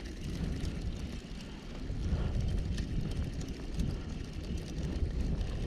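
Wind buffeting the microphone: a low, uneven rumble, with light scattered clicks over it.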